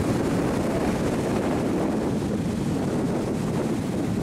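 Wind buffeting the microphone over a steady rush of surf.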